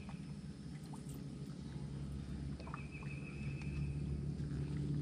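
Quiet outdoor ambience: a steady low hum with a high, buzzy trill about a second long, heard twice.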